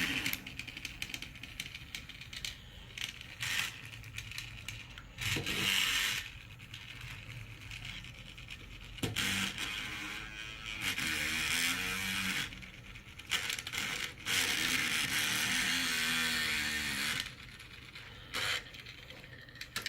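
Phillips screwdriver turning and scraping in the screw of a plastic toy car's battery cover, with irregular plastic rattles and handling noise.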